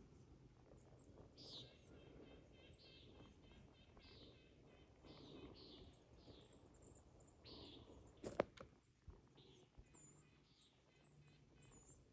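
Faint birdsong: short high chirping phrases, some trilled, repeated every second or so over a quiet background. A single sharp click sounds about two-thirds of the way through.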